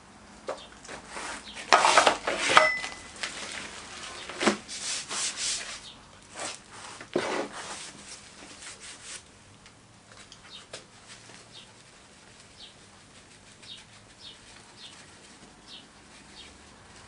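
Rough scraping and rubbing of loose moulding sand and a wooden moulding flask across a board, in a run of strokes in the first half. After that only faint light taps.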